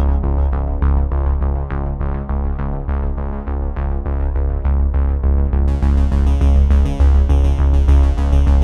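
Electronic background music: synthesizer notes over a deep bass and a steady beat, with a bright high layer joining a little past halfway.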